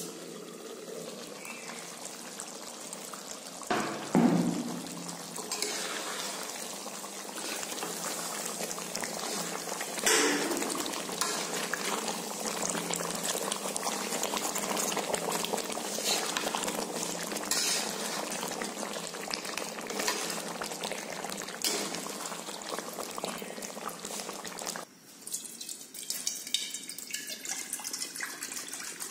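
Chicken cooking in a thick gravy in a pan, sizzling, with spatula stirring and two loud knocks about four and ten seconds in. Near the end, water is poured from a bottle into an empty iron kadai.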